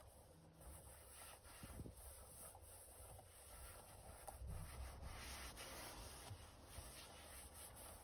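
Faint, irregular rubbing: gloved hands wiping and working the leather seats of an SUV.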